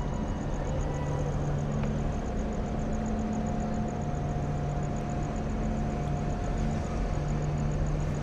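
Steady low engine rumble and hum, with a faint high-pitched pulsing of about five beats a second and a thin steady tone through most of it.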